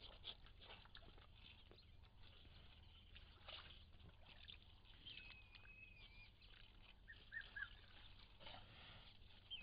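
Faint sounds of Cape buffalo drinking at a waterhole: small splashes and slurping clicks at the water. A bird gives a thin wavering whistle about halfway through and a few short chirps a little later, over a steady low hum.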